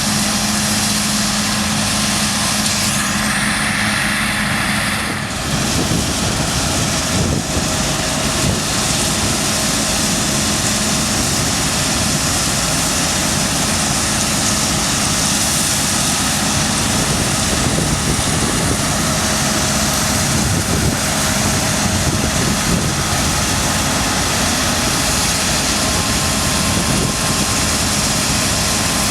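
Claas Lexion 7600 combine harvester running steadily under load as it harvests beans: engine and threshing machinery together. A steady low hum drops out and the sound shifts about five seconds in.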